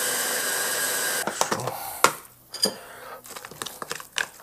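Immersion blender's chopper attachment running with a steady whir as it chops herbs in oil, stopping about a second in. A few plastic knocks and clatters follow as the motor unit and lid are lifted off and set down on the wooden board.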